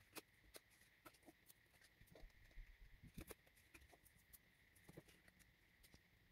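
Near silence, with faint scattered taps and rustles of a small cardstock box being handled and set down on a cutting mat.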